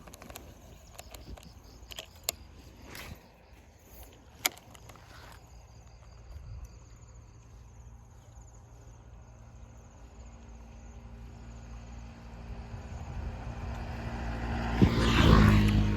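A road vehicle approaching and passing close by: its engine and tyre noise grow steadily louder and are loudest near the end. Faint insect chirring and a few sharp clicks sound in the first few seconds.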